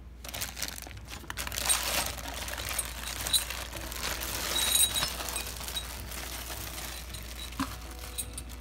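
Clear plastic packaging bag crinkling and rustling while being handled, with small clicks and clinks from the metal spark plug wrench inside. Most of it falls in the first five or six seconds, then it eases off.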